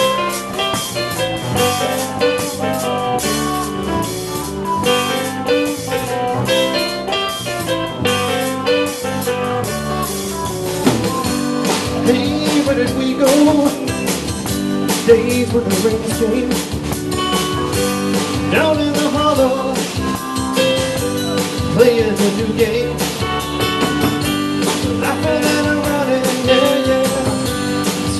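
Live band playing: drum kit struck with sticks, electric guitar and keyboard. The music grows fuller and a little louder about a third of the way in, with sliding, bending notes after that.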